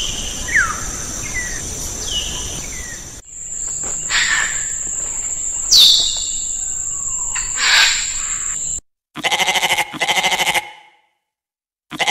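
Birds chirping and calling over a steady high whine, with short falling calls. Then a goat bleats twice in quick succession about nine seconds in.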